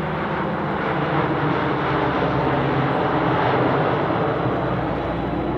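C-130 Hercules transport aircraft's four turboprop engines droning as it flies past, growing louder to a peak about three and a half seconds in, then easing off.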